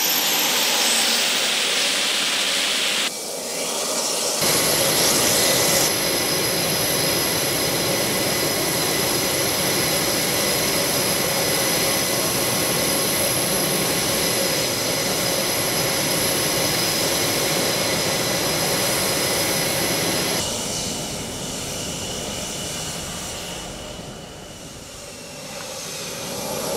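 Blue Angels F/A-18 Hornet's twin jet engines running as the jet sits and taxis: a steady jet roar with a thin high whine. The sound shifts abruptly a few times and drops lower a few seconds before the end.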